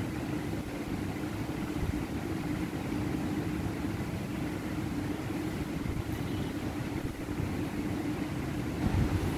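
Steady low hum of background noise with a constant droning tone, and a low thump near the end.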